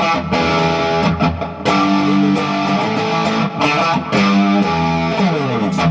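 Gibson Les Paul electric guitar played through an amp: hard-rock chords and riffs, several chords left to ring, ending with a descending slide.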